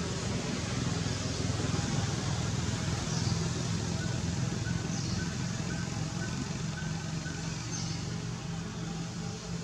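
Steady low engine hum, like a motor vehicle running nearby, with faint short high chirps every couple of seconds.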